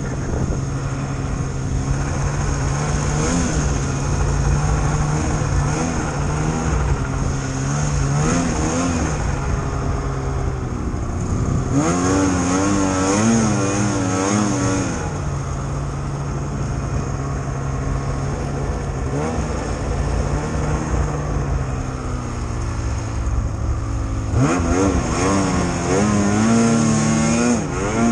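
Snowmobile engine running hard through deep powder snow, a steady drone that twice rises to a higher, wavering pitch for a few seconds as the throttle is worked, about halfway through and near the end.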